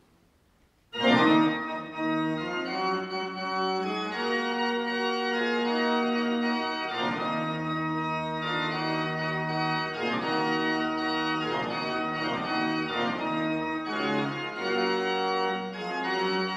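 Pipe organ playing slow, held chords, starting suddenly about a second in.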